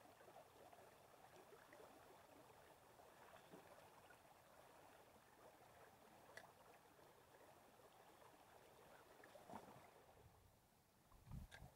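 Near silence: the faint, steady trickle of a shallow creek, with a few soft clicks and a low thump just before the end.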